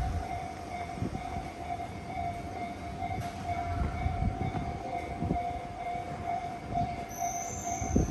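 Electric train running nearby, heard as a steady mid-pitched whine over a low rumble.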